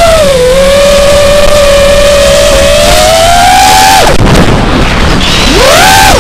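Electric motor and propeller whine of an FPV model aircraft, heard from on board. A steady high whine climbs slowly, cuts off abruptly about four seconds in as the throttle drops, then swoops up and down near the end with quick throttle changes. Wind rumbles on the microphone throughout.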